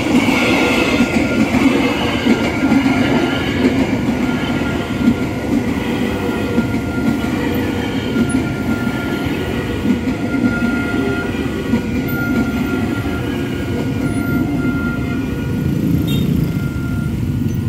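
KRL commuter electric train, an ex-Tokyo Metro 6000 series set, passing close by: a loud, steady rumble of wheels on rail, with a faint high tone coming and going over it.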